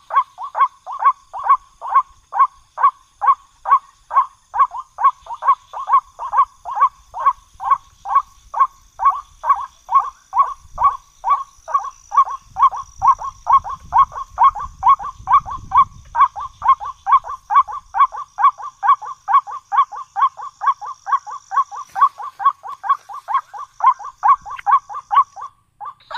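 White-breasted waterhen (ruak-ruak) call played as a hunting lure: a long, very even run of short croaking notes, about three a second.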